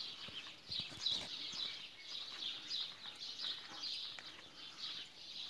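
Birds chirping and twittering, many short high calls overlapping and repeating throughout.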